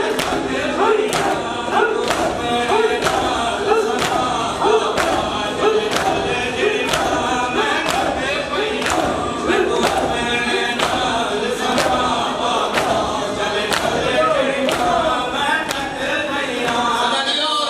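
Men chanting a noha together in unison, over a steady beat of hand-on-chest strikes (matam) landing about every two-thirds of a second.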